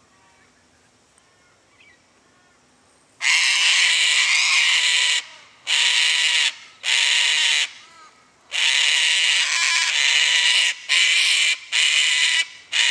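Sulphur-crested cockatoo screeching in alarm at an approaching lace monitor: a run of about seven loud, harsh screeches starting about three seconds in. Before them there are only faint bird chirps.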